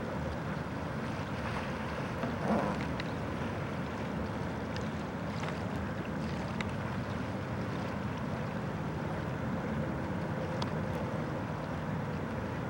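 Steady wind noise on the microphone over open water, with a few faint splashes.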